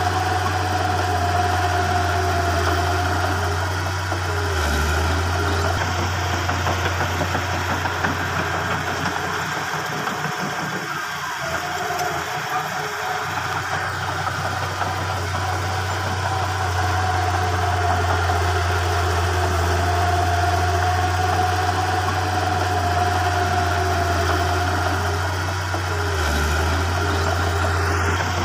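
Diesel engines of a small Komatsu bulldozer and a dump truck running at a steady low drone, with a thin steady whine above it. The sound dips slightly around the middle.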